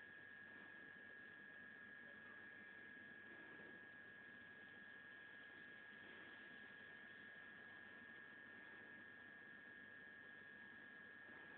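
Near silence: a faint steady hiss with a thin, steady high-pitched whine.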